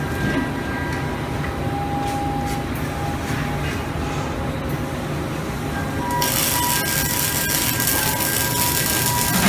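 Steady low machinery rumble; about six seconds in, the arc of an automatic pipeline welding head strikes on the pipe joint and runs with a loud, steady hiss.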